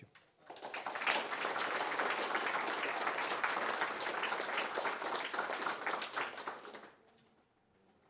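Audience applauding: many hands clapping, starting about half a second in, holding steady, then dying away about seven seconds in.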